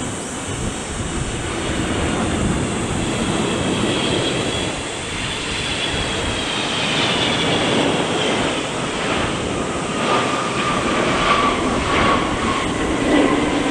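Asiana Airlines Boeing 777-200ER jet airliner passing on its landing approach, its twin engines giving a steady roar with a whine that slides down in pitch as it goes by.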